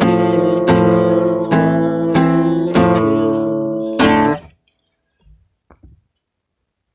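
Acoustic guitar music: strummed chords that ring between strokes, a new strum every half second to a second. It stops after a last strum about four seconds in, leaving near silence with a couple of faint taps.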